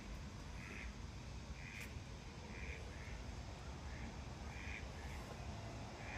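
Mallard ducks quacking faintly: short calls repeated roughly once a second over a steady low rumble.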